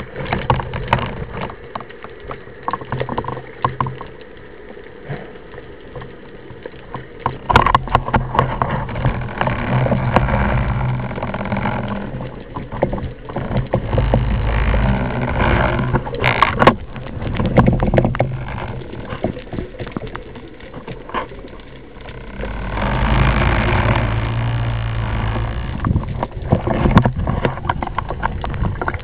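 Underwater camera audio: water rushing and swirling against the camera housing in irregular surges as the diver moves, with scattered knocks and a low steady hum beneath.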